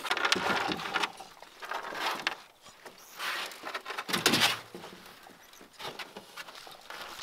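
Irregular scraping, knocking and rustling of a canoe being rocked back and forth with a puppy in it, with a louder knock about four seconds in.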